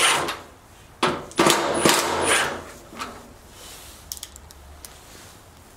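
Milwaukee Fuel cordless drill driver running a screw into the sheet-steel cabinet panel in short bursts between about one and two and a half seconds in, followed by a few light clicks.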